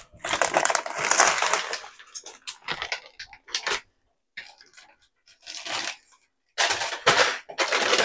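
Plastic bag of jasmine rice crinkling as it is handled, in several bursts, the longest in the first two seconds and a cluster near the end.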